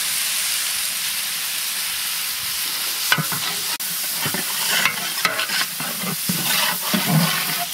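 Duck meat and masala sizzling as it fries in oil in a large metal pot. From about three seconds in, a long-handled ladle stirs it, scraping and knocking irregularly against the pot.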